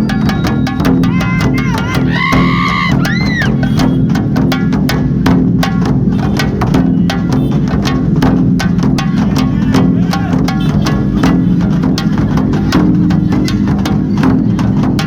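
Loud festival music driven by fast, dense drumming over a steady low drone, with a few short rising-and-falling whistle-like tones about two seconds in.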